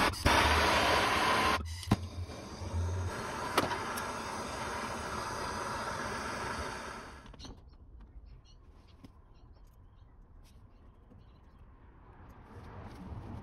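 MAPP gas hand torch burning with a steady hiss while heating the copper pipe joint of an air conditioner's high pressure switch. The flame cuts off about seven seconds in, leaving faint clicks of handling.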